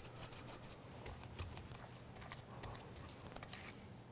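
Faint patter of dry spice rub being sprinkled onto a raw flank steak, over a low steady hum.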